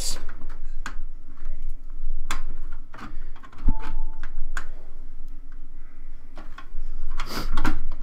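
Graphics card being worked into a PCI Express slot: scattered plastic and metal clicks and knocks as the card is pushed against the slot and the case bracket, with one heavier knock about halfway through.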